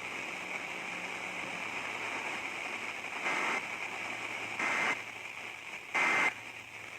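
Weather radio receiver hiss, then three short data bursts about 1.3 s apart in the second half: the EAS/SAME end-of-message code that closes a weather warning broadcast.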